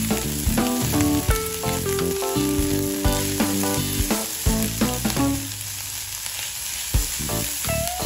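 Fried rice sizzling in a nonstick frying pan while a spatula stirs it, with a few sharp knocks of the spatula against the pan.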